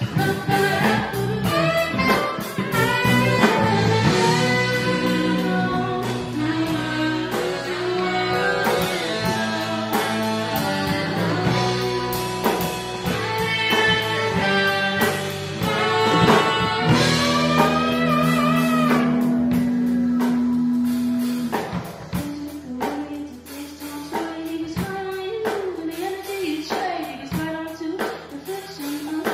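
Live band playing with electric guitars, saxophones and a drum kit under a lead singer's voice. A long low note is held for a few seconds past the middle, and the music then turns quieter and sparser near the end.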